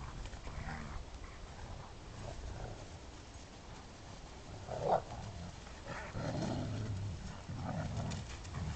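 Leonberger dogs play-fighting and growling. One short, louder bark comes about five seconds in, and the growling thickens over the following three seconds.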